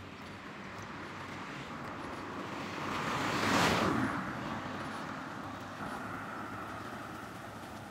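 A Suzuki kei car passing close by on the street, its tyre and engine noise swelling to a peak about halfway through and then fading away.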